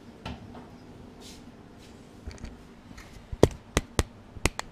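Kitchen handling noises: a soft rustle near the start, then a quick run of five or six sharp clicks and knocks from about three and a half seconds in.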